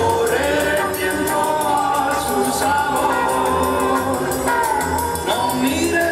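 Music: a song with a voice singing over a quick, steady percussive beat.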